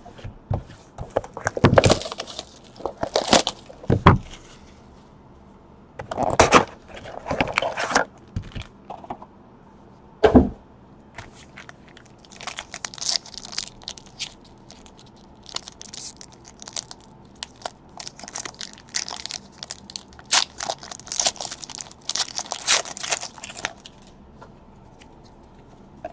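Plastic wrap crinkling and tearing as a sealed trading card box is unwrapped and opened, with one sharp knock about ten seconds in. Then a long run of fine high crinkling as a foil card pack is handled and torn open.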